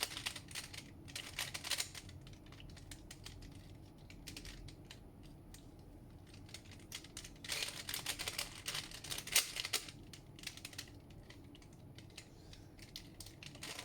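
Rubik's cube being twisted by hand: quick plastic clicks and clacks of the layers turning, in irregular bursts, with the busiest run a little past halfway.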